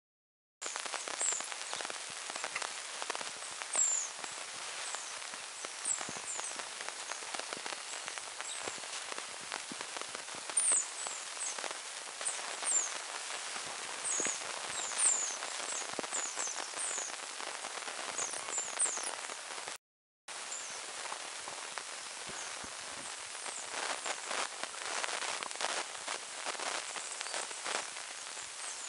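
Banded mongoose troop foraging in dry grass and leaf litter: steady crackling and scratching with scattered clicks. Many short high chirps sound over the first two-thirds, and a brief dropout about twenty seconds in cuts the sound.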